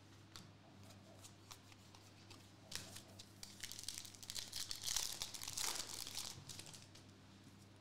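A foil-lined Donruss Elite trading card pack being torn open by hand, its wrapper crinkling. The crackle starts about three seconds in and is loudest around five seconds.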